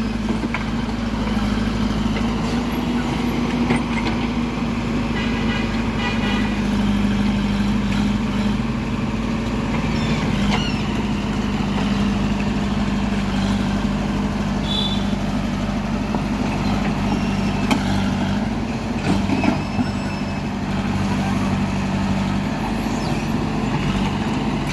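Heavy diesel engine running steadily at low, even revs, its pitch shifting slightly now and then, with a few short knocks on top.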